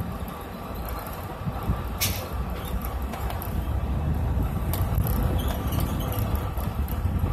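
Bus engine and road noise heard from inside the cab while driving: a steady low rumble that gets louder after about two seconds, with two sharp clicks.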